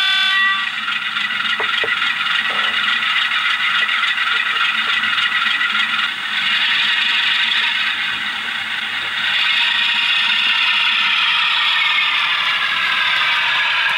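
Digital (DCC) sound of a model diesel locomotive's engine running, played through the model's onboard speaker, with its pitch drifting as the engine note changes. A few light clicks come about two seconds in.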